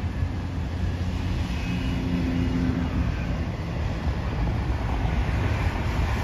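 Diesel engine of a tractor unit towing a semi-trailer, passing at low speed with a steady low rumble; a short steady hum rises over it about two seconds in.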